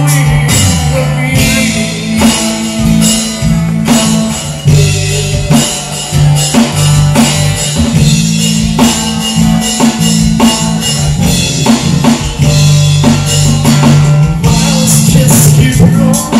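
Live band playing amplified pop-rock: drum kit keeping a steady beat, electric guitar and deep bass notes, with a man singing through a microphone and PA.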